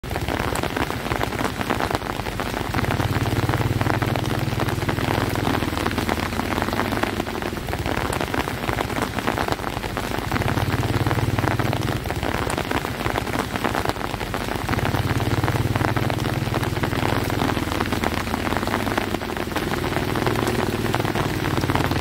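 Steady rain falling on wet ground and vegetation, an even hiss of drops, with a low rumble that swells and fades several times.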